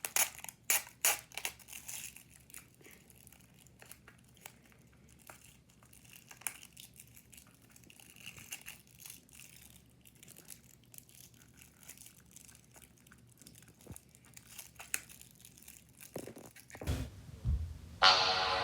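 Plastic cover on a slime container crinkling and tearing as it is peeled open along its tear strip, with dense crackles for the first couple of seconds and fainter crinkling after that. A few low thumps come near the end, and music starts just before it ends.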